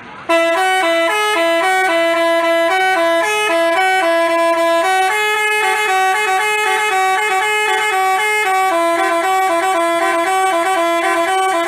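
Telolet bus horn of the Basuri multi-tone type playing a melody of quickly changing notes, without a break.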